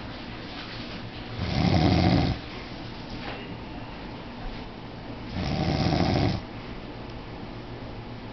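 A man snoring in his sleep: two loud snores about four seconds apart, each lasting about a second.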